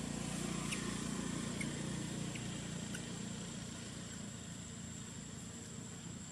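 A low, steady engine hum that slowly gets quieter, with a thin, steady high-pitched tone above it.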